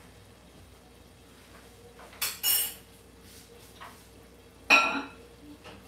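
Metal kitchenware clinking: two quick ringing clinks about two seconds in, then a louder ringing clink near the end.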